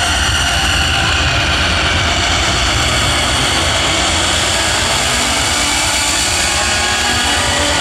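Loud electronic dance music played live over a festival sound system: heavy bass under a dense, steady wall of synth tones, with no break or change.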